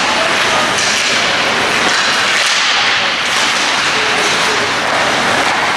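Steady noisy hockey-rink sound during a youth ice hockey game, with a few sharp knocks and slaps from sticks and puck.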